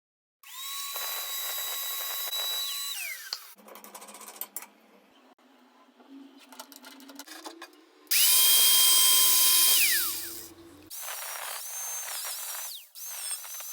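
Angle grinder motor running at high speed with a high, steady whine, switched off and winding down, then run again. There are three runs; the middle one is the loudest, and in the last one the pitch dips and wavers. Quieter clatter of handling comes in between.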